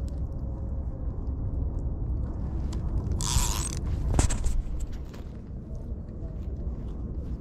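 Spinning fishing reel being cranked, its gears creaking and clicking, over a steady low rumble. A short hissing burst comes about three seconds in, followed by a sharp click.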